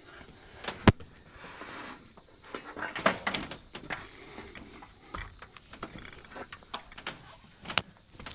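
Scattered sharp knocks and clicks, the loudest about a second in, a cluster around the middle and another near the end.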